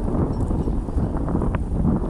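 Wind buffeting the microphone: a steady, loud, low rumble, with a few faint ticks over it.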